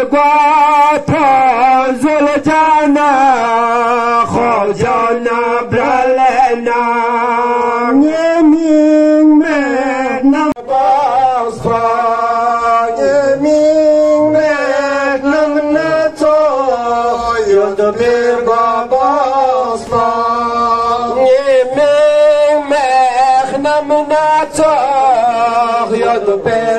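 A man singing a slow Muharram lament (nauha), drawn out in long wavering held notes with melismatic turns.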